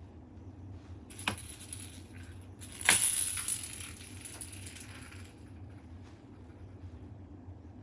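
A cat's small ball toy batted across a hard floor: a light tap a little after a second in, then a louder hit about three seconds in followed by a couple of seconds of jingly rattling that fades as the ball rolls away.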